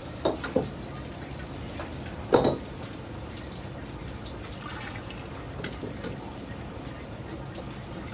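Metal ladle knocking against a steel wok: two knocks near the start, a louder clank about two seconds in, then a few soft taps, over a steady hiss.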